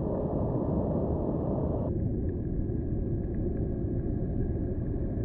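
Steady low rumbling outdoor noise with no distinct events, its upper part dropping away about two seconds in.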